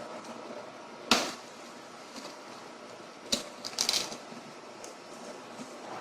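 Handling noises from unpacking a boxed monitor: a sharp knock about a second in, then a couple of clicks and a short rustle near the middle, over a faint steady hum.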